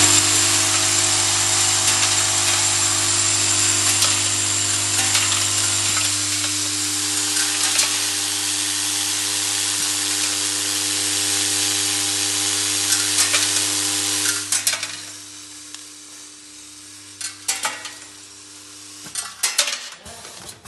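Vibratory bowl feeders of a screw-packaging machine running. A steady low hum sits under a dense, hissing rattle of screws and small parts being shaken along the bowl tracks. About two-thirds of the way in, the rattle drops much quieter, leaving the hum and a few scattered clicks until the hum stops near the end.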